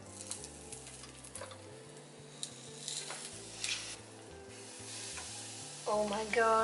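A filled tortilla wrap sizzling in an electric sandwich toaster, with a few light clicks and taps as it is handled.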